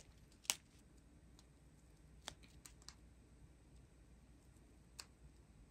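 Near silence with about five faint, short clicks and ticks from small plastic bags of resin diamond-painting drills being handled.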